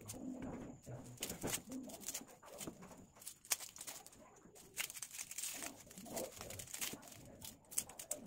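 A small kitchen knife peeling red onions. The dry onion skin crackles and the blade clicks and scrapes in quick, irregular ticks.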